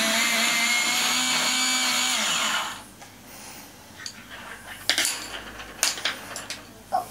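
Small electric pencil sharpener running with a coloured pencil pushed into it: a steady motor whine that sags slightly and stops a little under three seconds in. A few light knocks follow.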